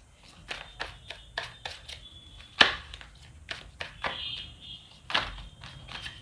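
A tarot deck being shuffled by hand, with irregular soft slaps and clicks of cards against each other. One slap about two and a half seconds in is louder than the rest.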